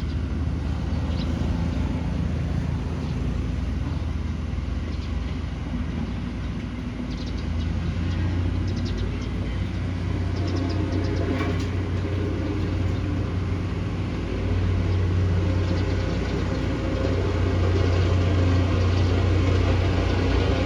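Bulldozer's diesel engine running with a deep, steady drone that grows louder about two-thirds of the way through and again near the end, with scattered clicks in the middle.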